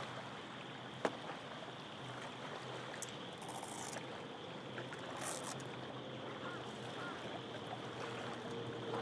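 Faint steady background hiss with a low hum, one small click about a second in, and two short soft rustles near the middle as a cable connector is handled and greased.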